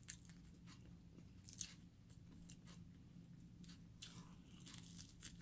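Faint chewing and crunching of a person eating fried chicken wings, with a few short crunches scattered through.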